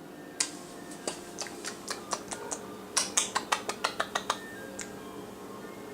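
A toddler eating the last of her mashed potatoes from a bowl: a run of about a dozen sharp little clicks and taps, coming quicker for a second or so near the middle.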